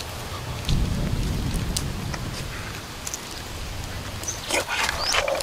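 Low wind rumble on the microphone, strongest about a second in, then a short rising chirp and several sharp crackles near the end.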